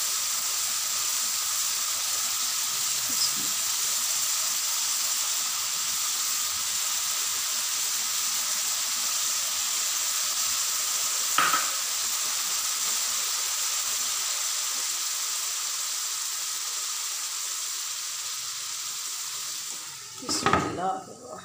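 Keema and peas sizzling steadily in a non-stick frying pan, with a single sharp tap about halfway through. Near the end a glass lid knocks down onto the pan and the sizzling drops away, as the dish is covered to cook on low heat.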